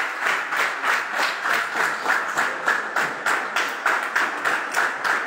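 A roomful of students clapping together in a steady rhythm, about three claps a second, applauding the end of a talk.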